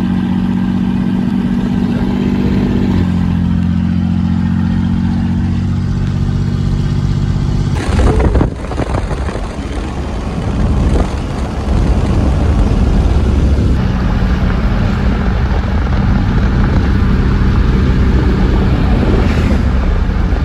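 Engine and road noise of a vehicle driving along, heard from inside with the window open. A steady engine drone drops in pitch about three seconds in. A loud rushing noise takes over for a few seconds in the middle, then the drone returns.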